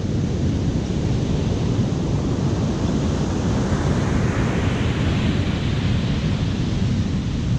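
Ocean surf on a beach with wind buffeting the microphone in a heavy, steady rumble. The hiss of the surf swells in the middle and eases off near the end.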